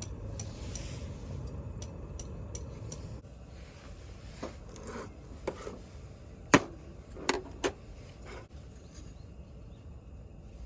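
A scatter of sharp knocks and clinks, like hard objects being handled or struck, the loudest about six and a half seconds in and three more close together about a second later, over a low steady rumble that drops away about three seconds in.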